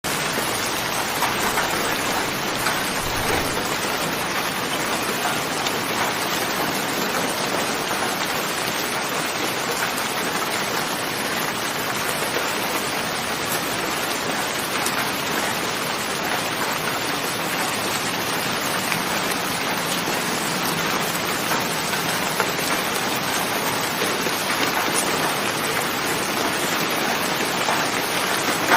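Steady rain falling on a surface, an even hiss with scattered drops.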